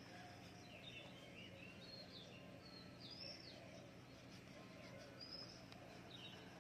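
Faint bird chirps: a scattered series of short whistled notes that slide up and down in pitch, over a faint steady hum and hiss.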